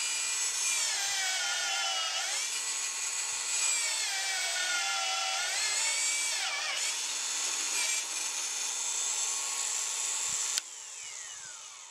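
Milwaukee M18 Fuel magnetic drill turning an annular cutter through steel plate: a shrill, steady cutting whine that dips and recovers in pitch a few times as the cutter loads up in the steel. Near the end the sound drops suddenly and the whine falls away as the drill winds down.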